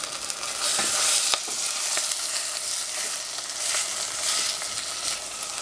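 Bok choy sizzling in hot oil in a stainless steel saucepan, stirred with a wooden utensil that knocks and scrapes against the pan now and then. The sizzle rises for a moment about a second in.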